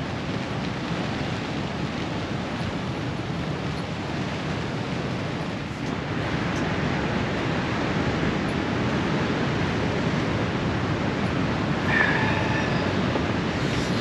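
Steady rush of storm wind and rain, growing louder about six seconds in, with a brief high-pitched squeak near the end.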